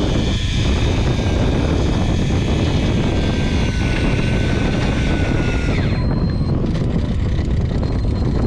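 Daiwa Tanacom electric fishing reel's motor whining steadily as it winds up a hooked fish. The whine sags slightly and cuts off about six seconds in. Wind rumble on the microphone runs underneath throughout.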